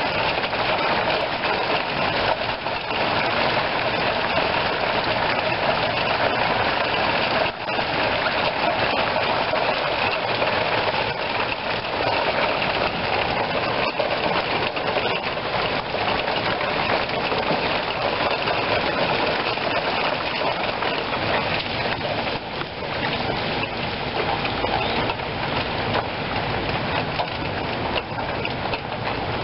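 Steady rain falling in a summer rainstorm, an unbroken even hiss.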